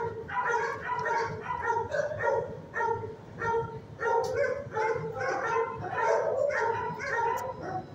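Dogs barking continuously in a shelter kennel block, one bark after another with no pause.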